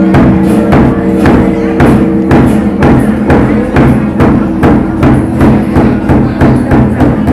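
Vietnamese temple ritual music: drum and wood-block strokes about twice a second over steady held instrumental notes.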